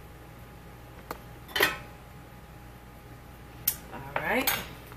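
A spoon and other utensils clinking against a glass bowl and the counter: a faint click, then a sharp clink about one and a half seconds in and another click near the end, followed by a short rising sound.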